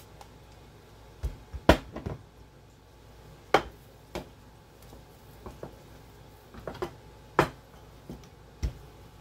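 Scattered knocks and clicks of a rolling pin against a countertop as a canned biscuit is rolled flat, the sharpest about two seconds in.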